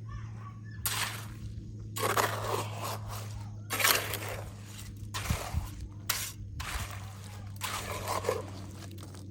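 Hand masonry work with cement mortar and rough stones: a run of about six gritty scrapes and crunches, each lasting under a second, as mortar is worked and stones are set in it.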